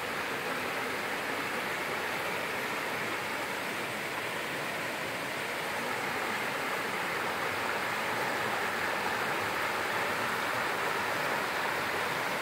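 Shallow stream running over small rapids: a steady rush of water that gets a little louder after the middle.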